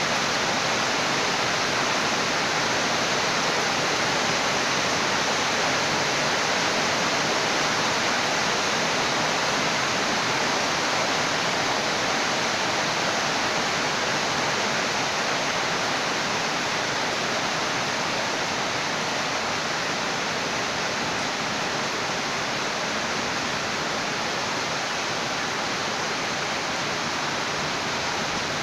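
Heavy rain falling steadily, an even hiss without breaks or thunderclaps.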